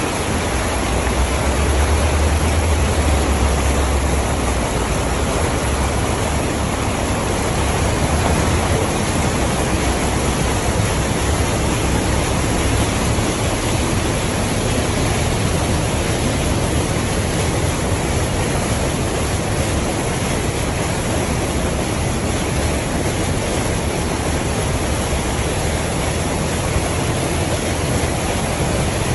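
Steady rushing splash of floodwater thrown up by a car driving through a flooded street, with a deep rumble under it that is heaviest in the first few seconds.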